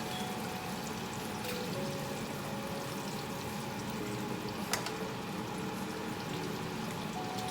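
Floured pork chops frying in hot oil in a pan, a steady sizzle, with one sharp click near the middle.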